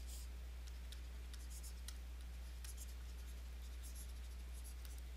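Stylus writing on a tablet: faint, irregular little taps and scratches of the pen tip as a word is handwritten, over a steady low electrical hum.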